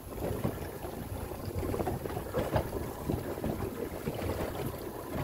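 Choppy water slapping and sloshing against the hull of a small fishing boat in irregular surges, with wind buffeting the microphone.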